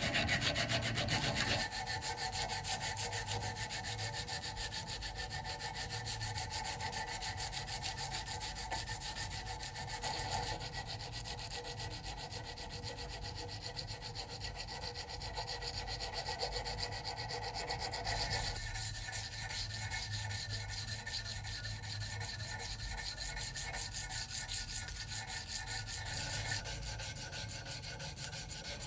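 Sanding on the knife: steady abrasive rubbing that shifts in pitch and texture a few times.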